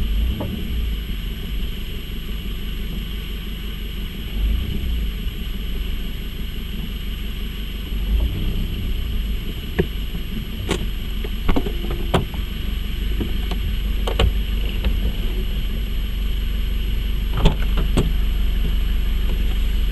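Mercedes-Benz W201 car running with a steady low rumble and a steady hum. From about halfway through, scattered sharp clicks and knocks sound over it.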